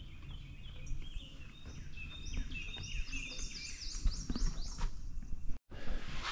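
A bird singing outdoors: a quick run of short whistled notes that each slide downward, climbing higher in pitch as the run goes on, over a low rumble. The sound cuts out completely for a moment near the end.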